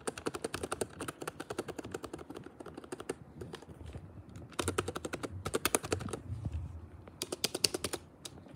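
Office keyboard's space bar and other keys pressed in rapid runs of clacks, about ten a second, with short lulls around the middle and near the end; the space bar gives the deepest, thockiest sound.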